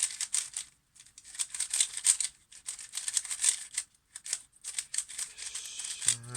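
A brand-new Qiyi Warrior S 3x3 speedcube being turned quickly: rapid plastic clicking and clattering of its layers, in bursts with short pauses. Its tensions are still tight out of the box.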